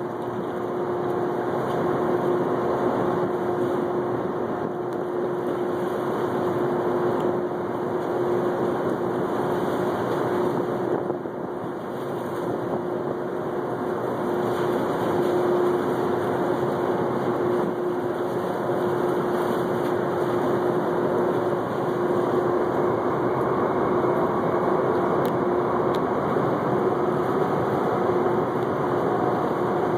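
Steady drone of a boat's engine with a constant low hum, mixed with a wash of wind and water noise.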